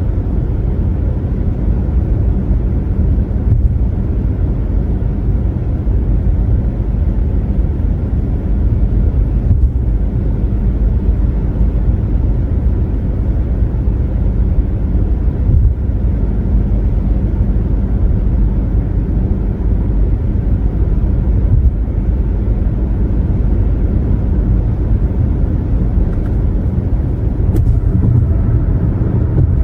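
A car driving at highway speed, with a steady low rumble of tyres and engine.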